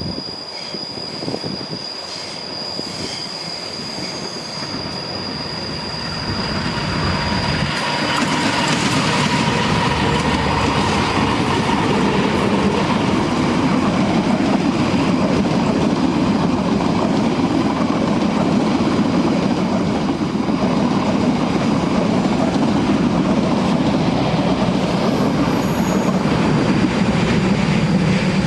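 Indonesian passenger train running past on the rails. It grows louder about seven seconds in and then gives a loud, continuous rumble of wheels and cars to the end; a steady high ringing tone is heard in the first several seconds.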